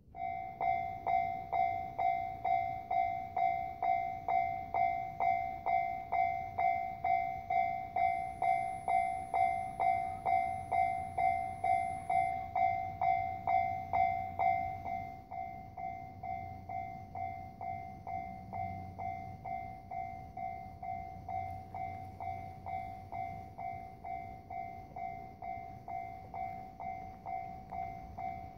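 Electronic railway level-crossing warning bell ringing: a single-pitched ding repeating about twice a second. It starts suddenly and drops in loudness about halfway through.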